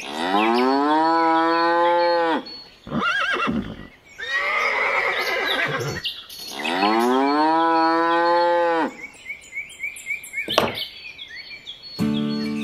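Two long cow moos, each rising in pitch and then held for about two seconds, some six seconds apart, with shorter animal calls between them and faint bird chirping. Music comes in near the end.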